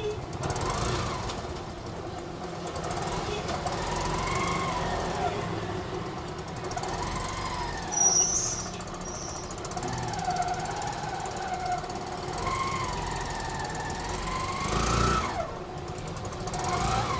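Street traffic: motor vehicle engines running and changing pitch as they pass and rev, over a steady hum of traffic, with a short knock at the very start.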